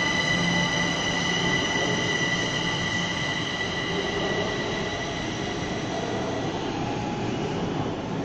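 Kaohsiung MRT metro train pulling away from the platform: a rumble of wheels on the rails with a steady high whine on top, both slowly fading as the train recedes.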